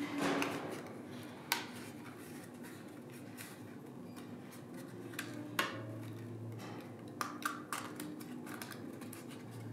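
Scattered light clicks and taps of a thin wooden veneer cup piece being handled and bent into shape by hand, over a faint steady hum.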